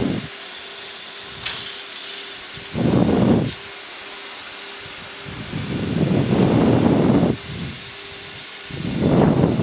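Steady rushing hiss of airflow and ventilation on a Boeing 737-800 flight deck on final approach, under a faint steady hum. Low rumbling swells rise and fall four times, and a single sharp click comes about a second and a half in.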